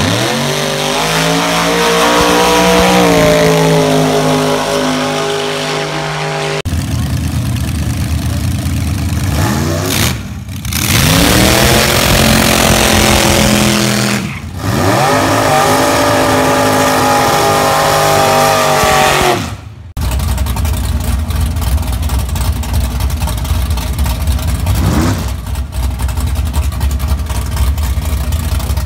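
Drag cars' engines at full throttle, the note climbing steeply in pitch as each car accelerates away, heard in several short clips one after another. In the last third a car's engine rumbles at low revs close by, with one brief rev.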